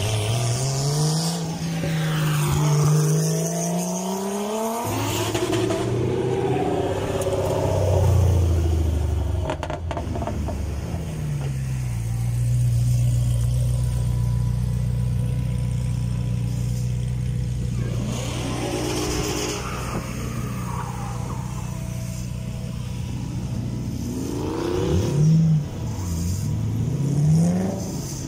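Drift cars' engines at a start line: revs climb and fall in the first few seconds as a car pulls away, then an engine idles steadily through the middle, with quick throttle blips near the end.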